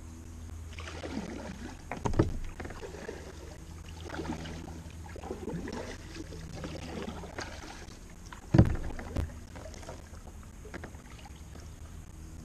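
Double-bladed paddle strokes from a Pelican Catch 100 kayak, a rhythmic swish and splash of the blades dipping on alternating sides, over a steady low hum. Two sharp knocks cut in, one about two seconds in and a louder one past the middle.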